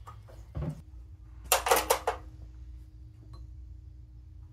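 A short burst of metallic clinks and clatter about a second and a half in, after a single knock, with a faint steady hum starting just before it.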